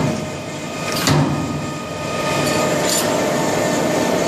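Workshop machinery running with a steady hum, with two sharp metallic clanks about a second in and about three seconds in.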